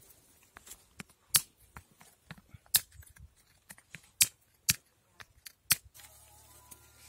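A hand-held stone striking a walnut set on a flat rock to crack its shell: a series of sharp knocks, five of them loud, with fainter taps between. Music with steady tones comes in near the end.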